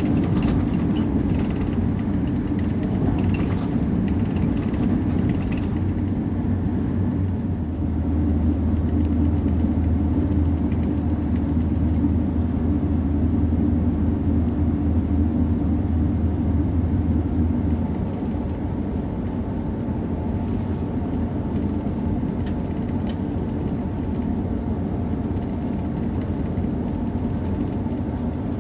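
Running noise of an ICE 3 high-speed electric train heard from the front passenger seats: a steady low rumble of wheels and drive that eases about eighteen seconds in, after which a faint whine of a few steady tones comes through.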